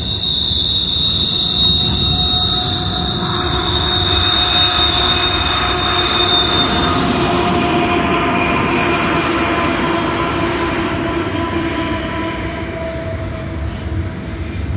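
Double-stack intermodal freight train rolling past with a constant rumble and a steady high-pitched wheel squeal. About halfway through the squeal gives way to lower squealing tones as the train's mid-train distributed-power diesel locomotives (GE ES44C4/ES44DC units) go by.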